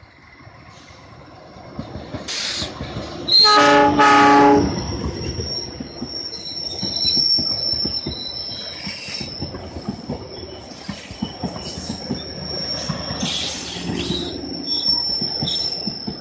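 Passenger train's diesel locomotive sounding two short horn blasts about three and a half seconds in, a driver's greeting to people by the line. The coaches then run past with a steady clatter of wheels over the rail joints and a thin, steady high wheel squeal.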